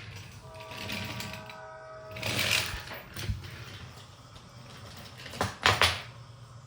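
Plastic toy train pieces being handled: rattling and clicking, with a short steady pitched tone about a second in and two sharp loud clacks near the end.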